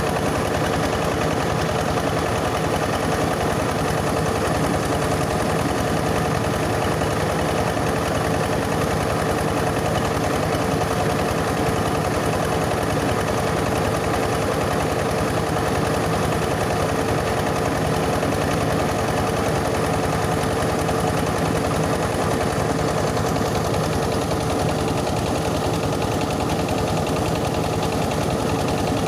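Yanmar 20 diesel engine driving a mobile rice huller, running steadily with an even, fast firing beat and the huller working along with it.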